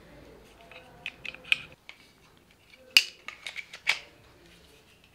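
Plastic clicks and taps of a GoPro mic adapter being handled and fitted into a Ulanzi cage around a GoPro: a few light clicks, then a sharp click about three seconds in, followed by several more.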